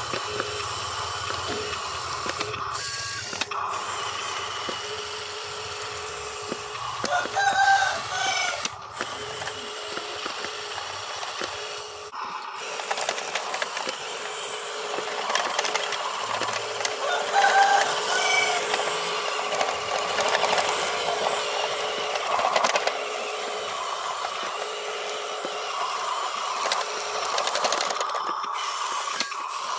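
Huina RC dump truck's small electric motors and gears whirring steadily as it drives and works its tipping bed. Two louder pitched calls, like a rooster crowing, sound in the background, about a quarter of the way in and again past the middle.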